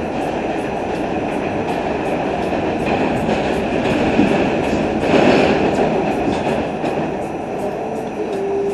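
R68 subway car running at speed, a steady rumble with regular clicking of the wheels over the rails; the noise swells louder about five seconds in.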